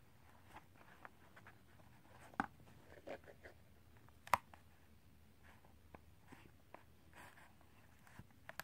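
Quiet room tone with faint scraping and a few light taps from handling the slime mix and its container; the sharpest taps come about two and a half and four seconds in.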